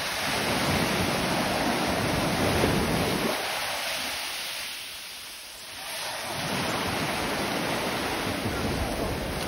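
Ocean surf breaking and washing up the beach: one wave swells and rushes in over the first three seconds, and another from about six seconds in, with wind on the microphone.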